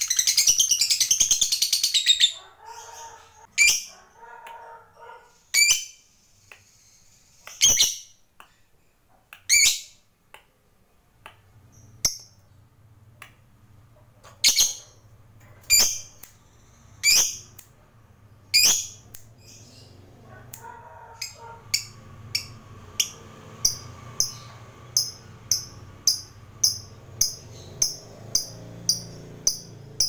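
Lovebird calling: a fast, loud chattering trill (the 'ngekek') that stops about two seconds in. Single sharp high chirps follow every couple of seconds, and from about two-thirds through they become a quickening run of short chirps, nearly two a second.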